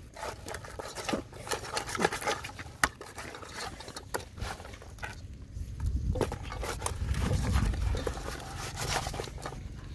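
Baby corn in its husks rustling and crackling as hands pack it into a metal pot, with scattered light clicks of the ears against the pot. A low rumble swells about six seconds in and fades by eight.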